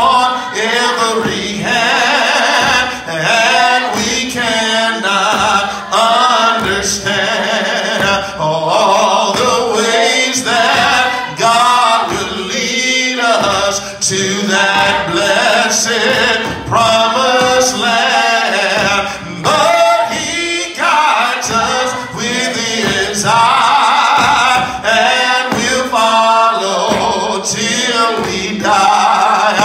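A man singing a gospel song into a microphone, in long phrases with short breaks.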